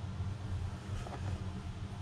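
Steady low background hum, with a faint light knock or two about a second in.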